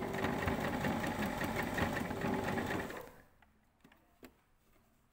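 Electric sewing machine stitching through several thick layers of fabric, running steadily for about three seconds and then stopping; a couple of small clicks follow.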